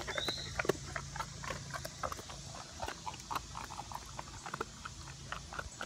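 A dog crunching and chewing a dog biscuit up close: a run of short, irregular crunches.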